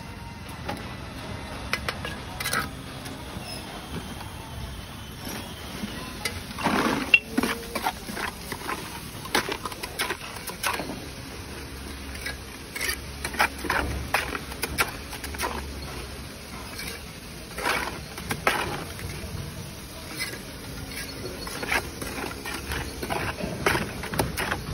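Steel trowel scraping and scooping wet mortar and tapping clay bricks into their mortar bed: an irregular run of scrapes, clicks and knocks.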